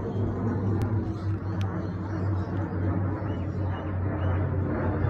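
Jet airliner passing overhead, its engines making a steady low drone.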